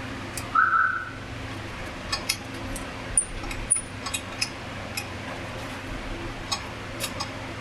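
Scattered light metallic clicks and clinks, tools and small steel parts knocking together as components are taken off a bicycle, over a steady low hum, with a short tone about half a second in.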